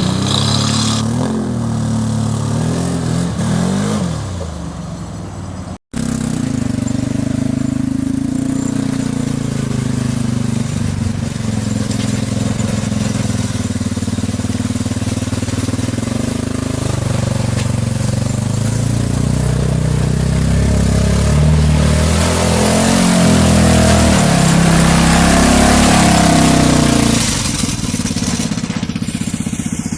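Off-road vehicle engine running as it drives along a trail, its pitch rising and falling with the throttle. The sound cuts out for an instant about six seconds in, and it gets louder for a stretch near the end.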